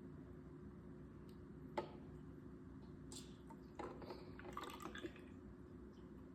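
Faint trickling and dripping of vinegar being poured from a bottle into a volcano model, with a light click about two seconds in and a cluster of small clicks and rattles around four to five seconds in.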